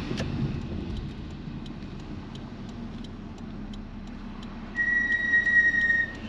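A garbage truck's held high warning tone sounds for a little over a second near the end, over the low steady rumble of a running car and a light ticking about twice a second.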